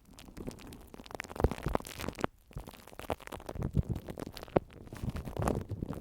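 Close-miked ASMR handling sounds: irregular scratching and crackling with scattered sharp taps, a couple of them louder, about a second and a half in and about four and a half seconds in.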